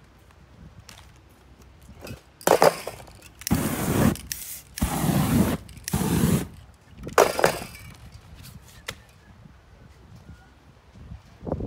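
Handling noise: about five short scraping, rustling bursts as stiff stencil sheets and the painted board are shifted about on the floor, in the middle of the stretch.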